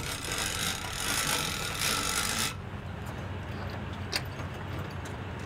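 Boat trailer winch strap being let out and pulled through the winch, a steady rasping rub that stops abruptly about two and a half seconds in. It is followed by a couple of light clicks as the strap hook is worked free of the bow eye.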